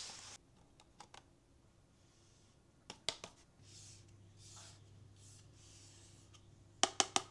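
A keycap fidget toy and its packaging being handled: a few faint clicks and soft rustling, then a quick run of about five sharp clicks near the end.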